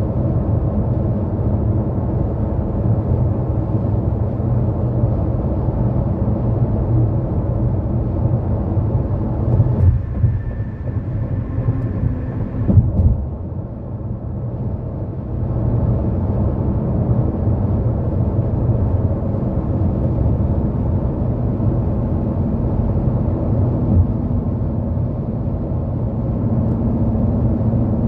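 A car driving at highway speed on an interstate: a steady low rumble of tyre and road noise. There are a few sharp thumps near the middle, the loudest about 13 seconds in, and the noise is briefly quieter after them.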